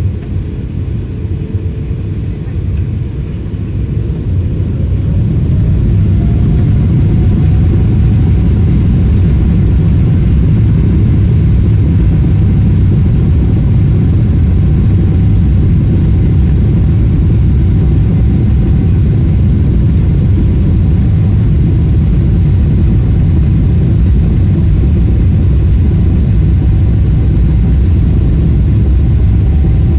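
Boeing 777-300ER's GE90 jet engines spooling up to takeoff thrust, heard from inside the cabin: a whine rises in pitch and the sound swells over the first several seconds. It then settles into a loud, steady low rumble through the takeoff roll.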